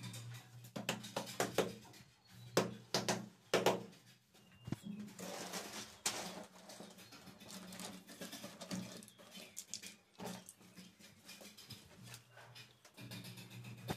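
Hand work on ceramic wall tiles: a quick run of sharp knocks and clicks in the first few seconds, then quieter scraping and scattered clicks. Background music comes back in near the end.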